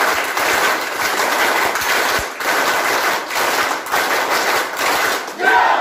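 A crowd of people clapping hard together, performing a drilled rhythmic clapping routine: a dense, loud wall of hand claps.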